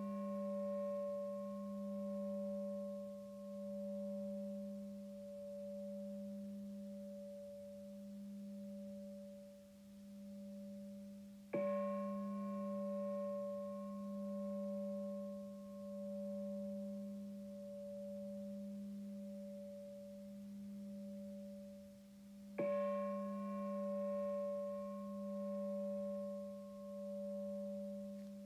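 Singing bowl ringing in a low, slowly wavering hum with a higher overtone, struck again twice about eleven seconds apart, each strike bringing a brief bright shimmer of upper tones.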